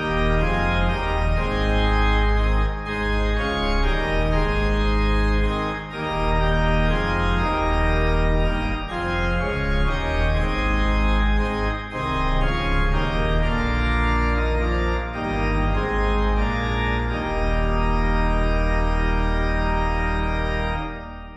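Organ music: slow sustained chords in phrases a few seconds long, with the last chord dying away at the very end.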